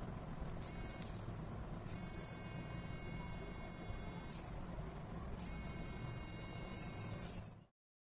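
Small DC motor of a homemade mini drill running with a high-pitched whine, switched on three times: a short burst, then two runs of about two seconds each.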